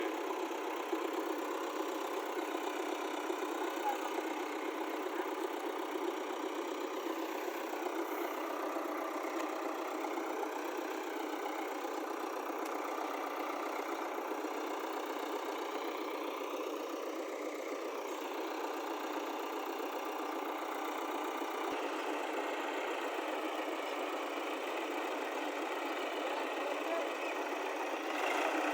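Diesel tractor engine running steadily, its pitch drifting slowly up and down.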